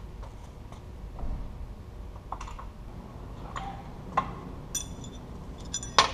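Scattered light metallic clicks and clinks of hand tools and hardware being handled, with a few short ringing taps. A louder metal clatter comes near the end.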